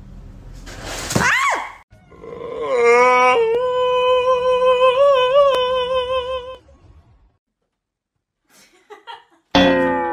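A tabby cat's long, drawn-out yowl of about four and a half seconds, held at one pitch with a slight waver. A short rising cry comes about a second in, and another cry falling in pitch starts near the end.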